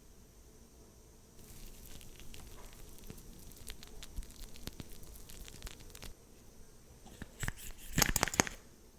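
Makeup items handled close to the microphone: a stretch of soft crackly scratching with small clicks, then a louder cluster of sharp taps and clicks near the end.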